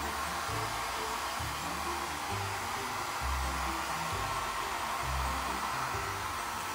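Small handheld hair dryer running with a steady rush of air, blowing on a dog's wet paws, over background music.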